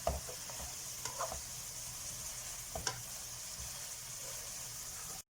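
Leeks and tofu in sauce sizzling steadily in a hot pan as they are stir-fried, with a few sharp knocks of the stirring utensil against the pan. The sound cuts off abruptly near the end.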